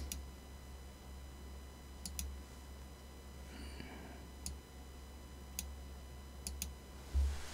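Computer mouse clicked a few times at spaced intervals, twice as a quick double click, over a low steady hum. A short low thump near the end.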